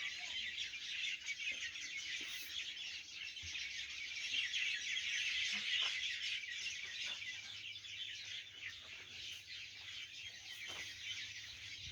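Dense, steady high-pitched chirping chorus, loudest around the middle, over a faint low hum with a few light knocks.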